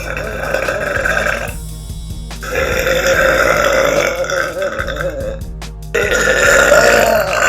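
A girl burping: three long, drawn-out burps with short pauses between them. The second and third each last about three seconds.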